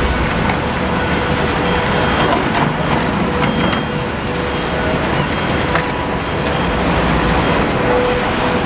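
Road traffic: cars driving past close by one after another, a steady rush of engine and tyre noise, with a faint constant hum underneath.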